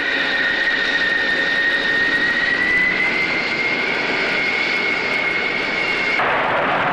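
EF-111A Raven's twin turbofan jet engines whining at taxi power: a strong, steady high whine over a rushing noise, rising slightly in pitch about halfway through. About six seconds in it changes suddenly to a broad rushing jet noise without the whine, as the aircraft starts its takeoff run.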